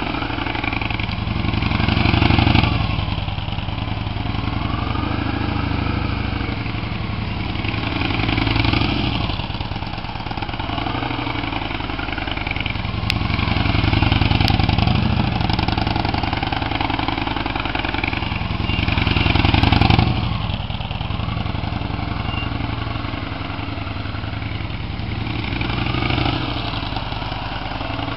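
Victory Vision Tour's V-twin engine running at low speed as the motorcycle circles, growing louder about every six seconds as it passes close by.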